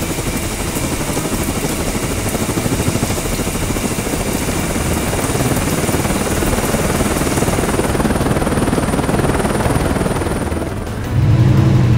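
Cartoon helicopter sound effect: rotor blades chopping fast and steadily over a hiss, dying away just before a louder, deeper engine sound cuts in near the end.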